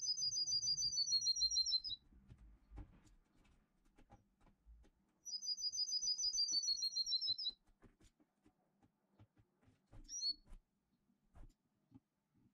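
A songbird's rapid, high trill, sung twice, each about two seconds long and dipping slightly in pitch at the end, then a short chirp near the end.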